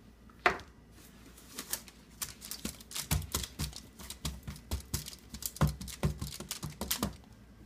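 Hands patting and pressing play-dough onto a foil-covered baking tray: a quick, irregular run of light taps and dull knocks with crinkles of aluminium foil. One sharp click about half a second in is the loudest sound.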